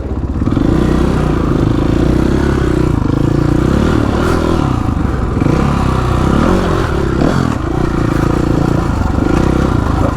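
Motorcycle engine running under way, its revs rising and falling with the throttle.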